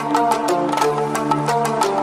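Background music: an upbeat instrumental with sustained pitched notes over a quick, steady percussive beat.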